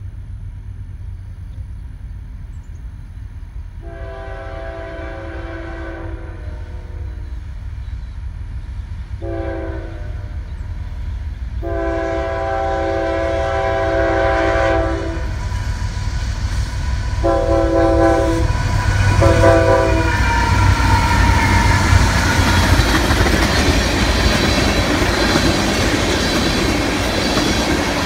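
Approaching freight train: the diesel locomotive's multi-note air horn sounds five blasts (long, short, long, then two short) for the grade crossing, over a low rumble that keeps growing. After about two-thirds of the way through, the locomotives pass close and the noise of engines and steel wheels on rail swells. Empty ethanol tank cars roll by at the end.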